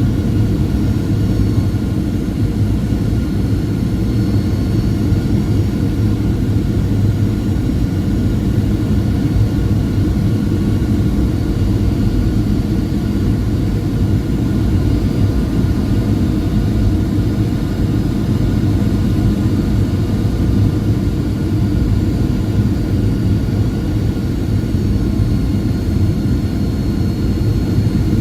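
Jet airliner heard from inside the cabin on the approach to landing: a steady, dense roar of engines and airflow, with faint steady whine tones above it.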